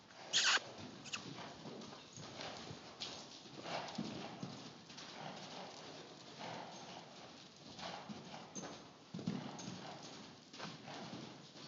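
Paint mare's hoofbeats thudding irregularly in the soft dirt footing of an indoor arena as she canters and gallops loose. A short, sharp, loud noise comes about half a second in.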